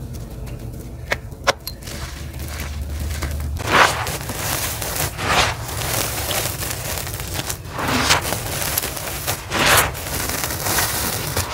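Clumps of gritty charcoal dust crunching and crackling as hands squeeze and crumble them, the grains pouring onto the floor. A couple of sharp clicks at first, then a denser crunching about four seconds in, with about four louder surges.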